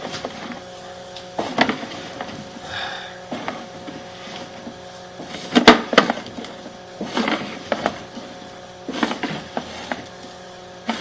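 Irregular knocks and clatters as a sewer inspection camera's push cable is fed down the drain line, over a steady hum from the camera equipment.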